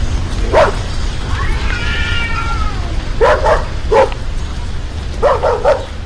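A dog barking in short, sharp yips, singly and then in a quick run of three or four near the end, with a long drawn-out cat meow that rises and falls about two seconds in.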